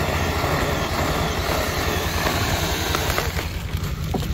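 Engine idling steadily under a wide hiss; the hiss thins out about three seconds in, and a few faint sharp cracks follow near the end.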